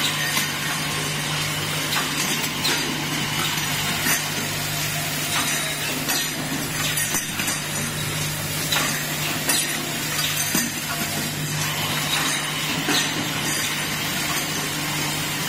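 Automatic assembly machine running: a steady machine hum under a constant noise, with many irregular sharp metallic clicks and clinks from its moving parts.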